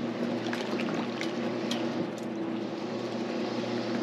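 Boat-lift motor running with a steady hum, with a few light ticks in the first two seconds.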